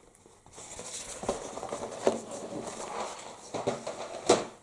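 Rustling and light knocks from a plastic model kit's box and packaging being handled, with a few sharp taps, the loudest near the end.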